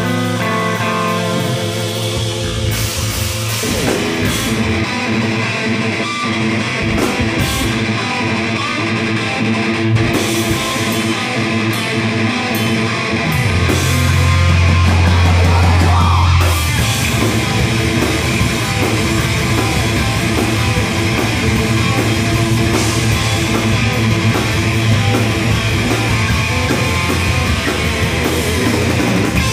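Live heavy rock band playing: distorted electric guitar and bass guitar over a drum kit, with cymbals coming in about three seconds in and a loud held low note near the middle.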